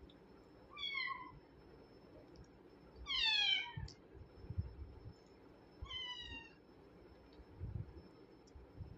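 Kitten mewing three times, each high call falling in pitch. The middle one is the longest and loudest.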